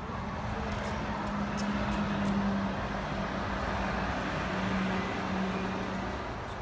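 A motor vehicle's engine running with a steady low hum over road noise, swelling slightly in the middle and fading a little near the end.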